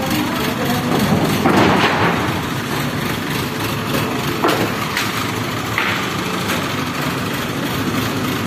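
Diesel engine of a mobile crane running steadily as the crane lowers a generator set. A few short knocks come through about a second and a half in and again between four and six seconds in.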